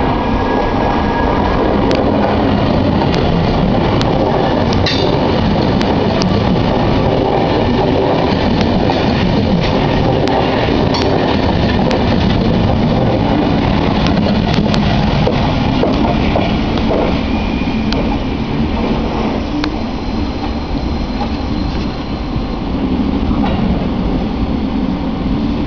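Passenger train cars rolling close by on the track: a steady loud rumble of wheels on rail with scattered sharp clicks, easing off somewhat about two-thirds of the way through.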